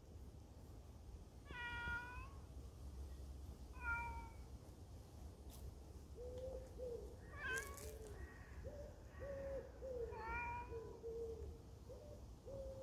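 A long-haired ginger cat meowing four times, a few seconds apart. From about halfway, low hooting calls repeat over and over behind the meows.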